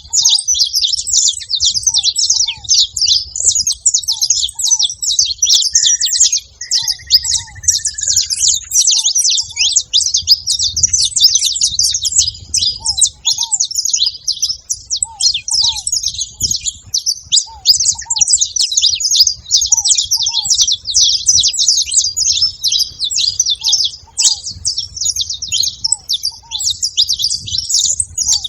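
Saffron finches chattering at a feeding spot: a dense, unbroken stream of high, overlapping chirps.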